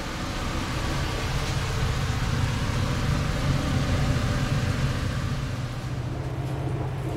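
Steady low drone of a ship's engines and ventilation heard inside the galley, with a broad rushing hiss over it that lessens about five or six seconds in.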